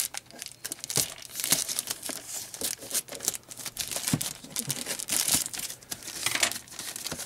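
Scissors snipping through a plastic poly mailer bag, the thin plastic crinkling and rustling as it is cut and handled, in a run of quick, irregular snaps.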